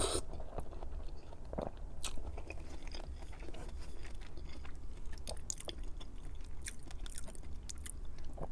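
Close-up chewing of a mouthful of sauce-covered cabbage roll, wet and soft, with many small mouth clicks scattered throughout.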